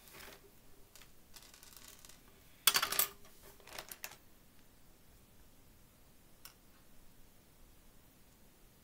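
Small plastic Perler beads poured out of a zip bag onto a wooden tabletop: a loud clattering rattle about three seconds in that lasts about a second. Afterwards a few faint clicks as single beads are picked up and set on the pegboard.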